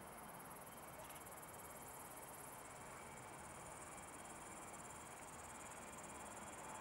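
Faint, steady high-pitched trilling of crickets in the grass, over a low, even hum of distant airport noise.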